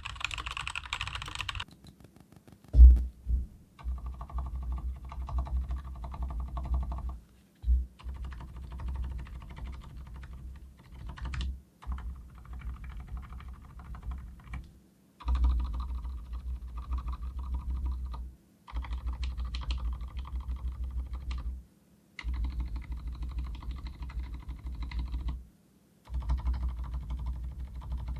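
Typing on a Leopold FC900R full-size mechanical keyboard with Cherry MX Silent Red switches: runs of fast, muffled keystrokes with a dull bottom-out thud, broken by short pauses every few seconds, with one sharper knock about three seconds in. The stabilizers are not lubricated, and the reviewer hears a faint metallic ping from them.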